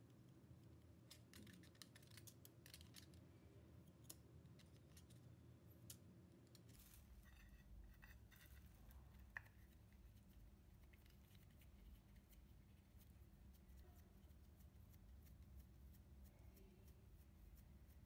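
Faint scattered clicks and light rustling as pastry dough is pressed into small fluted metal tartlet tins, the clicks thickest in the first half; otherwise near silence.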